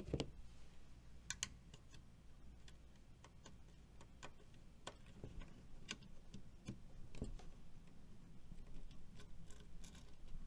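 Light, irregular clicks and taps of a screwdriver working a terminal screw on a Square D motor starter while a wire is fastened under it.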